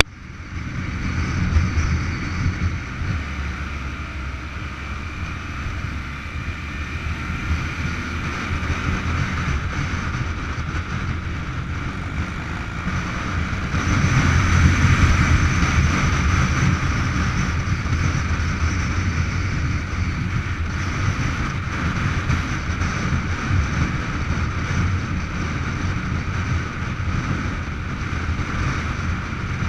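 Motorcycle engine running at road speed, mixed with wind rushing over the mounted camera's microphone. It grows louder for a few seconds about halfway through.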